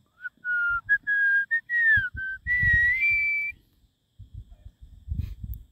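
A person whistling a simple tune: a string of clear held notes, some gliding down or up, that stops about three and a half seconds in. A low rumbling noise runs underneath.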